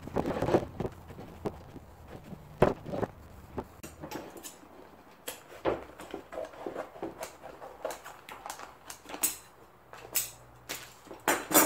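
Old vinyl cover being peeled off a lawn tractor seat's foam and pan: crackling and rustling, with irregular sharp clicks and knocks as the seat is handled, the loudest knock near the end.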